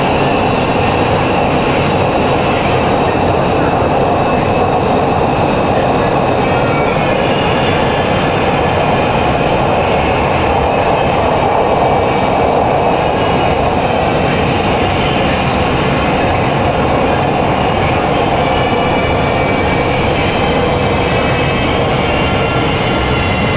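Interior of a Nanchang Metro Line 2 subway car running through a tunnel: a steady, loud rumble of wheels on rail and running gear, heard from inside the car.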